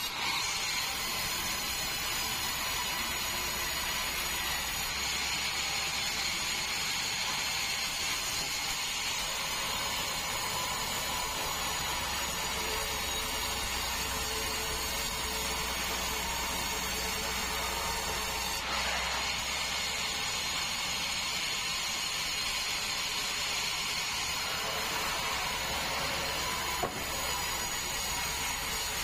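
Sawmill band saw running steadily as it cuts through a large meranti log, with a held whine over the cutting noise.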